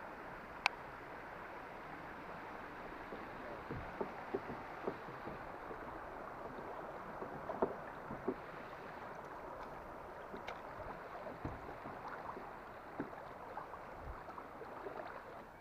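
River water rushing and lapping steadily around a kayak drifting through choppy current, with scattered light knocks and clicks against the kayak.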